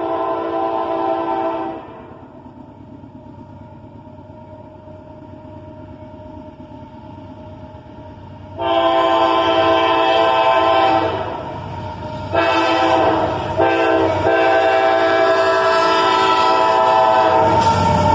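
Multi-chime air horn of a GE AC4400CW freight locomotive blowing a long, a long, a short and a long blast, the standard signal for a grade crossing. A low locomotive rumble swells near the end as the train draws close.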